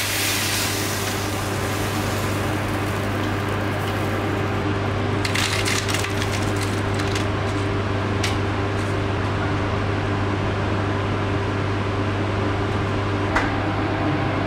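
Steady low hum of kitchen machinery, with a sizzling hiss fading away over the first second. A few light clicks and clatters come about five to six seconds in, around eight seconds, and near the end.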